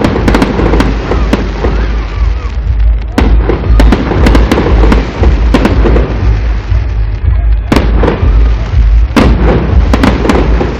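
Festive fireworks salute: shells bursting in a rapid, irregular string of sharp bangs, some in quick clusters, over a continuous heavy low rumble.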